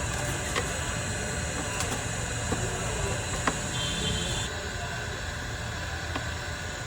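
Busy street background: a steady rumble and hiss of traffic, with a few short sharp clicks and taps scattered through.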